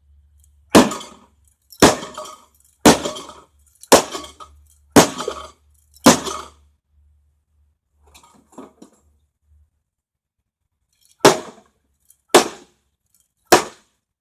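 A microwave oven being smashed with hard blows, its metal casing and glass clanking and breaking: six strikes about a second apart, a few faint knocks, then three more strikes near the end.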